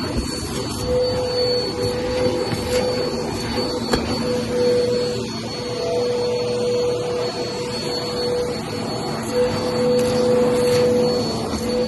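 Vacuum cleaner running steadily on carpet with a held whine, picking up a scattered debris mix that includes aquarium gravel. Scattered clicks and ticks come from the gravel as it is sucked up.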